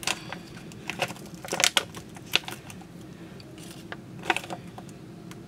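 Foil-lined coffee bean bag crinkling and crackling in scattered sharp bursts as it is pulled open and handled.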